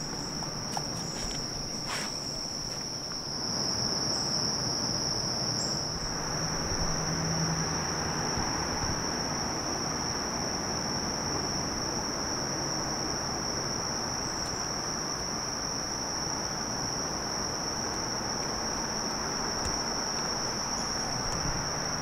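A steady, high-pitched chorus of insects, one unbroken tone, over a low even rushing noise that gets a little louder about four seconds in.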